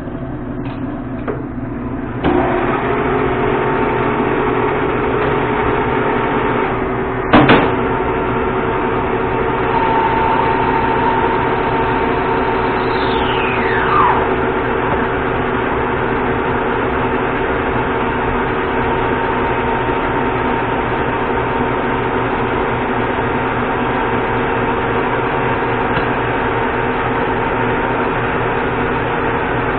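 Monarch gear-head lathe running, its spindle coming up to speed about two seconds in and then turning the chuck with a steady mechanical hum. A single sharp knock about seven seconds in, and a brief falling whistle a few seconds later.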